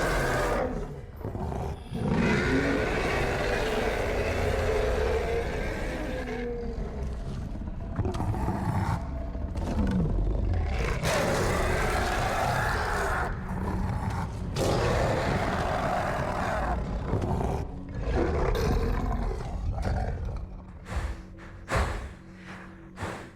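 Movie werewolf (Lycan) creature roars and snarls: a series of long, gravelly roars a few seconds each with short breaks between them, turning to shorter growls near the end.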